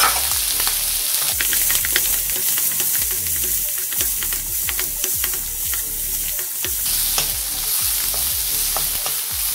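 Diced Spam, peas and carrots sizzling in a hot oiled wok while a wooden spatula stirs them, with steady hissing and many quick clicks and scrapes of the spatula against the pan.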